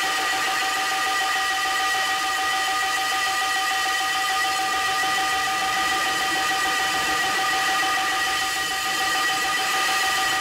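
Electronic noise music: a steady drone of several held high tones over a dense hiss, typical of audio feedback.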